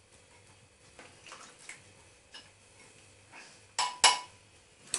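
A mixing bowl and kitchen utensils clinking and knocking lightly on the counter as egg whites are put into the bowl, with two sharper clinks near the end.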